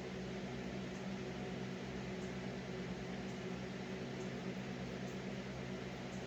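Steady low hum and hiss of room tone, unchanging throughout.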